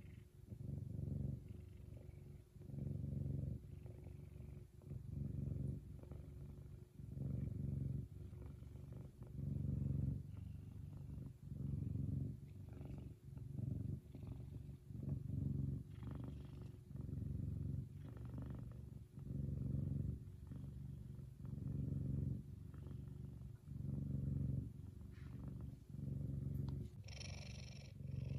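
An F2 Savannah cat purring loudly and steadily, a contented purr that swells and eases with each breath about every second and a half.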